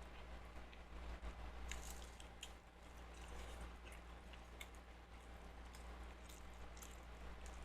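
A person chewing food close to the microphone: faint, irregular wet mouth clicks and squishes, over a steady low electrical hum.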